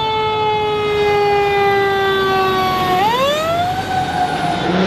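Hook-and-ladder fire truck's siren wailing: one long tone that slowly falls in pitch, then sweeps back up about three seconds in.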